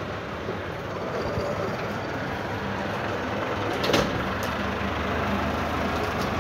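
Diesel engine of a farm tractor running steadily as it works over an overgrown plot, clearing the grass. A sharp knock about four seconds in.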